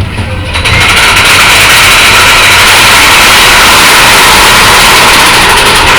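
Loud, steady roar of a mine-train roller coaster running along its track at speed. It comes in suddenly about half a second in.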